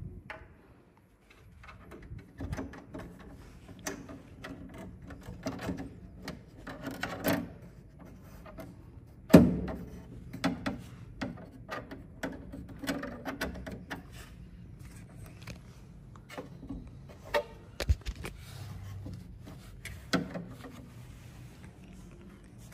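Hands fitting 3D-printed plastic lead screw covers inside a Bambu Lab X1C printer: scattered plastic clicks, taps and rubbing against the printer frame, with one sharp knock about nine seconds in.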